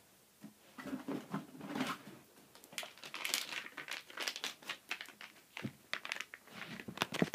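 Plastic treat packaging crinkling and rustling in irregular bursts of crackles as it is handled.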